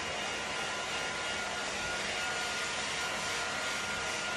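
Handheld hair dryer running on its low fan speed and warm heat setting, blowing a steady rush of air, with a faint steady whine over it from about half a second in.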